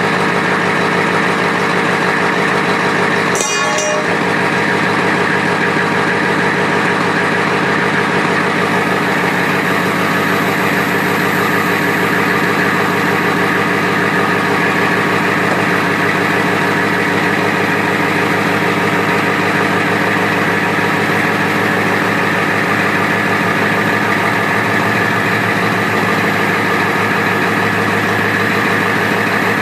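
Dump truck's engine idling steadily while the hoisted dump bed is lowered, with one brief sharp click about three and a half seconds in.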